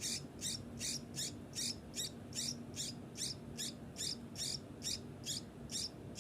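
Young sooty-headed bulbul (kutilang) chick calling over and over with short, harsh, high-pitched calls, about two to three a second in an even rhythm.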